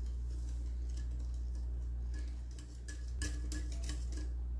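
Wire whisk stirring a runny batter in a glass bowl, its wires ticking against the glass in quick runs of clicks from about two seconds in, over a steady low hum.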